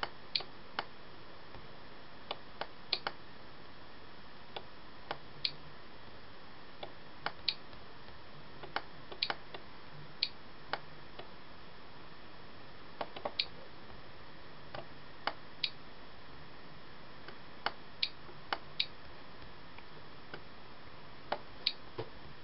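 Computer mouse clicking irregularly, sharp single clicks and a few quick pairs about once a second, over a steady background hiss.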